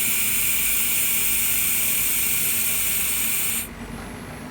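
Handheld fiber laser welder hissing steadily while welding 2 mm aluminium, cutting off suddenly near the end as the weld stops.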